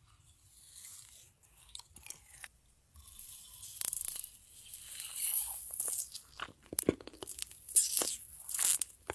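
Close-up eating sounds: a person slurping noodles and chewing. Sparse small mouth clicks at first, growing into a dense run of slurps and bites from about three seconds in.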